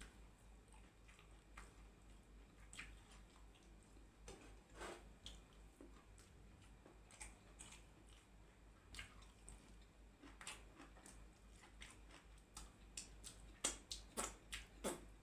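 A person chewing and eating: scattered short wet mouth clicks and smacks, coming thicker and louder near the end, over a faint low hum.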